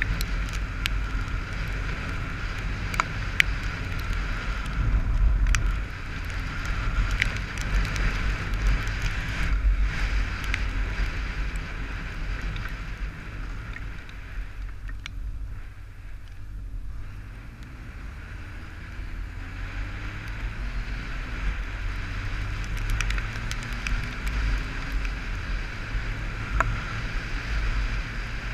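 Wind buffeting and rumble on the microphone of a camera riding on a Honda motorcycle in the rain, with the engine underneath and sharp ticks of raindrops hitting the camera housing. It eases about halfway through as the bike slows, then the engine note rises in a few steps as the bike picks up speed again.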